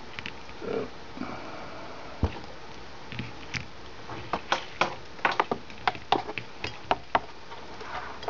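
Irregular sharp clicks and taps, bunched in a quick run of about a dozen over the second half, with a single dull thump about two seconds in, over a steady background hiss.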